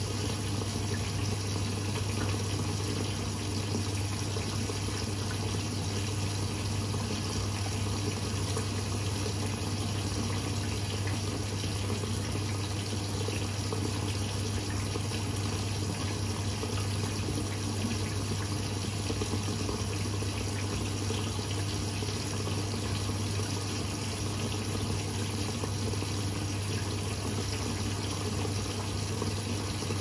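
Bosch Series 6 i-dos front-loading washing machine in its wash phase, the drum tumbling a load of fleece through water with a steady low motor hum and continuous swishing of water.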